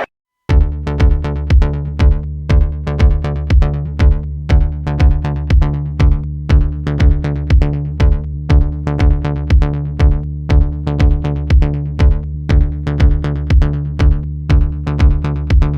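Electronic music with a steady drum-machine beat, about two beats a second, starting half a second in after a brief silence.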